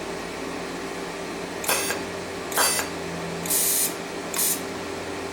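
Welding machine humming steadily, with four short hisses of argon from the welding torch spaced about a second apart. The gas is coming in brief puffs rather than a steady flow.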